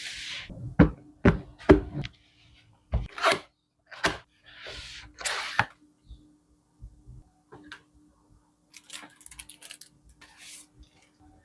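Unboxing handling sounds: a series of sharp knocks and clicks mixed with scraping and rustling of packaging, growing sparser and fainter after about six seconds.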